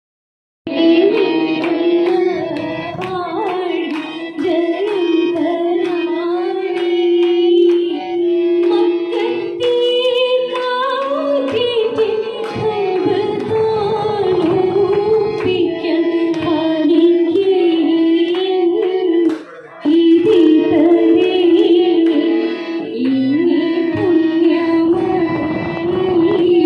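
Two women singing a Mappila song through microphones with harmonium accompaniment and hand-clapping, the melody moving through long held notes. The sound dips briefly about three-quarters of the way through, then resumes.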